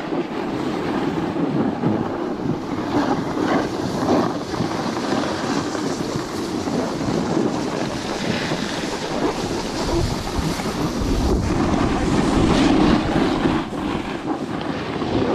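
Snowboards sliding and scraping over packed snow, a steady rushing noise, with wind buffeting the microphone.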